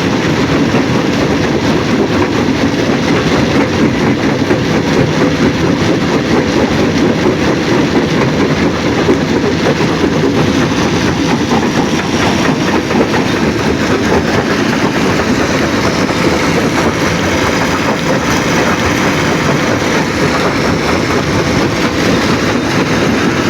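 Stone crushing plant machinery running under load: a loud, steady mechanical rumble with a dense rattle of rock, unbroken throughout.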